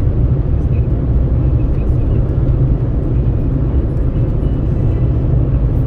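Steady road noise from a vehicle moving along a highway: a deep, even rumble of tyres and wind coming in through an open window.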